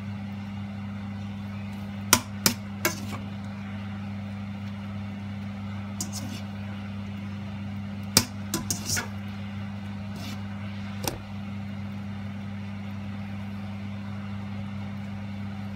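Serving utensils clicking and scraping against a nonstick wok and a serving bowl as creamy pasta with chicken and mushrooms is lifted out: a few sharp clicks about two seconds in, a cluster around eight to nine seconds, and one near eleven seconds. A steady low hum runs underneath.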